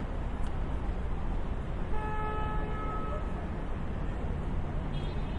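City street traffic: a steady low rumble of passing vehicles, with a vehicle horn sounding once, a steady tone of about a second and a half, about two seconds in.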